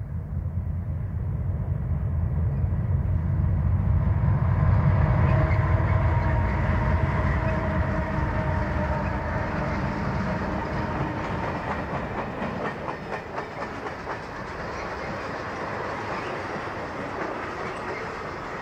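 Conrail diesel freight train passing close by: the locomotives' engines rumble, loudest about five seconds in, with a faint steady whine over them. As the freight cars follow, the rumble eases and the wheels click rhythmically over the rail joints.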